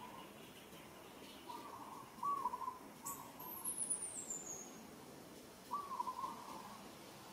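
Short hooting calls, repeated in small groups twice, and a thin high whistle falling in pitch about three seconds in.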